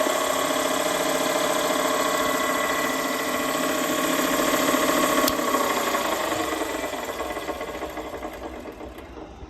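Showa Kikai SK-3A abrasive cut-off machine running with a steady hum and whine. A click comes about five seconds in, and then the sound fades away as the machine winds down.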